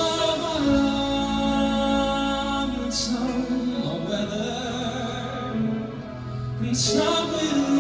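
A male singer performing a ballad live, holding long sung notes in phrases of about three seconds, accompanied by grand piano and a string quartet.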